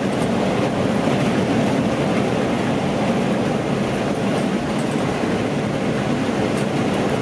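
Steady rumble of a moving coach heard from inside the cabin: road and engine noise, even and unbroken.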